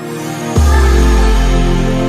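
Electronic background music, with a deep bass note dropping in about half a second in and slowly fading.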